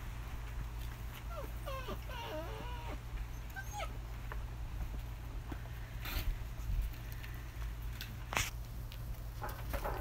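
Six-week-old German Shepherd puppies whining, a run of high, wavering cries starting about a second in and lasting a few seconds. A couple of sharp knocks follow later.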